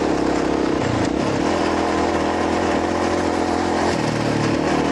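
Dual-sport motorcycle engine running steadily while riding along a gravel dirt road.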